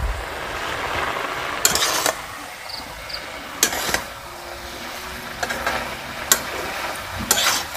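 A utensil stirring and scraping food in a cooking pot: four short, sharp scrapes over a steady low hiss of cooking.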